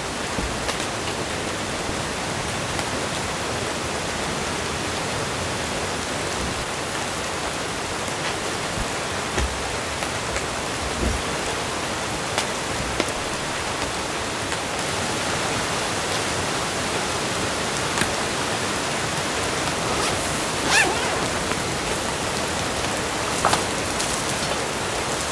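Steady rain on the tent canopy, heard from inside the tent, with a few light knocks as camping gear is handled.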